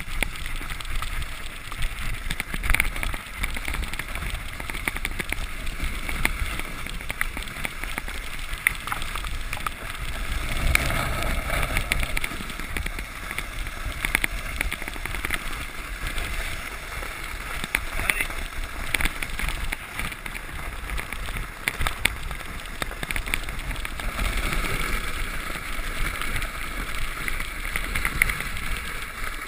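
A sled sliding fast over packed snow: a steady scraping hiss of the sled on the snow, with many small bumps and knocks as it runs over the uneven trail.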